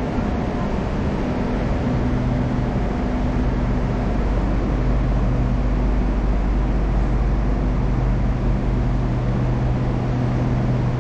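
Steady low hum and rush of noise inside the passenger cabin of an SRT Red Line electric commuter train (a Hitachi electric multiple unit).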